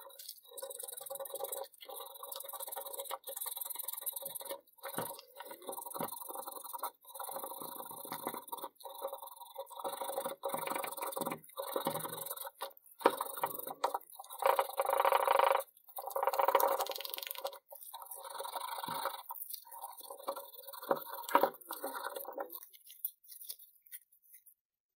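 Sandpaper rubbed by hand over the grey primer coat of an antique cast-iron clothes iron, first around the handle and then with a sanding block over the body. The rasping comes in repeated uneven strokes and stops near the end. This is the stage of sanding the dried primer smooth.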